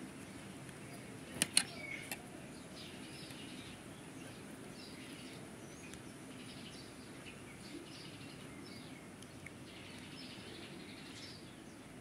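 A couple of sharp clicks about a second and a half in: a screwdriver prying at the plastic tabs of a washer lid-lock housing. Faint birds chirp in the background over a low steady hiss.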